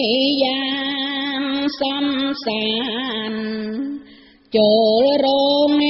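A woman's voice chanting Khmer smot, the Buddhist sung recitation, in long held notes that waver and bend in pitch. There is a short break for breath about four seconds in.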